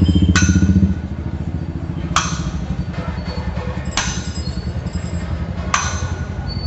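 Drum accompaniment for a street dance: a fast, continuous drum roll, loud for about the first second and then softer, with a sharp ringing metallic clang about every two seconds, four in all.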